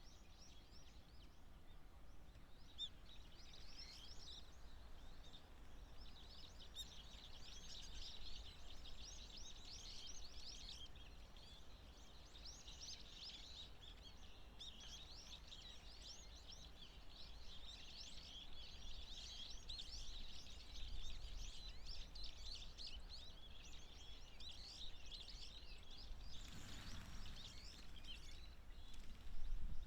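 A flock of waxwings giving high, thin trilling calls, many overlapping almost without pause. Near the end, a brief rush of noise.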